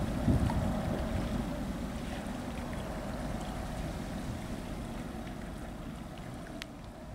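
Wind buffeting the microphone as a fluttering low rumble that eases off over the few seconds, over a faint steady drone. A single faint click comes near the end.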